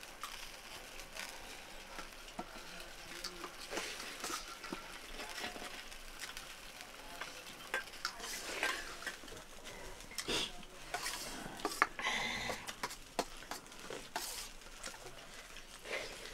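Quiet, irregular scraping and light clinks of fingers and spoons mixing and scooping rice on steel plates, with a few sharper metal taps.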